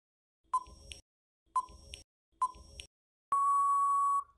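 Quiz countdown-timer sound effect: three short ticks about a second apart, then a loud, steady electronic beep lasting nearly a second that signals time's up.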